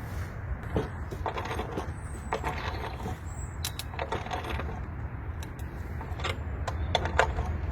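Irregular light knocks and metallic clinks over a steady low rumble.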